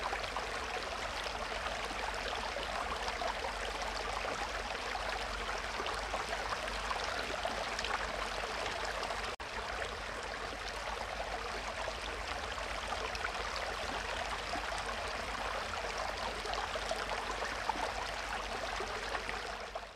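Steady rush of moving water from a large aquarium's circulation, over a low hum, briefly cutting out about nine seconds in.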